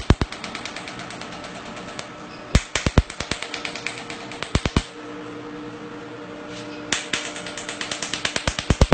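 Cosmetic skin laser handpiece firing against the skin: sharp snapping clicks, one pulse each, scattered singly and in short quick runs, then a fast run near the end, over the machine's steady hum.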